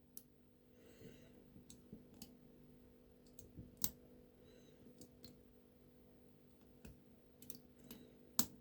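Faint, irregular small clicks of a lock pick working inside an OnGuard lock, a dozen or so scattered taps with a sharper one near the middle and another near the end, over a faint steady hum.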